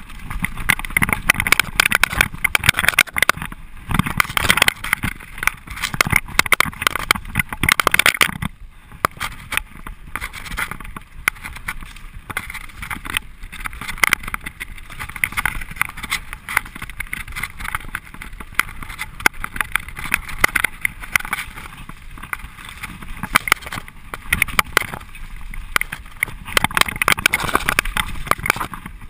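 Mountain bike descending fast over a rough, rocky dirt trail: tyres crunching over stones and the bike rattling and knocking continuously, with air rushing past. The clatter eases for a few seconds about a third of the way through, then picks up again.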